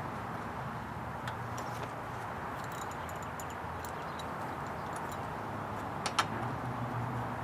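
Small metallic clicks and clinks of a wrench working a new spark plug into a lawnmower engine, the sharpest pair about six seconds in, over a steady outdoor background hum.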